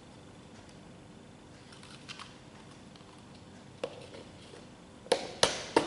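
A few faint clicks over quiet room tone, then three sharp clicks in quick succession near the end.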